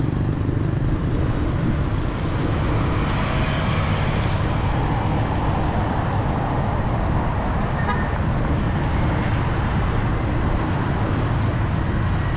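Steady city street traffic: a continuous mix of engines and tyres, with a low rumble underneath.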